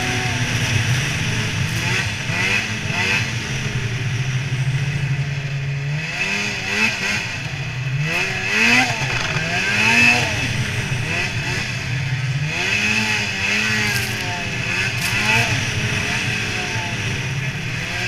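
Snowmobile engine running at speed, holding a steady pitch for about six seconds, then revving up and down several times as the throttle is worked.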